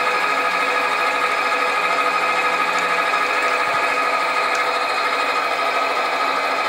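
Sieg bench metal lathe running steadily, its motor and gear train giving a constant whine, while a bit in the tailstock drill chuck cuts into a spinning brass bearing block.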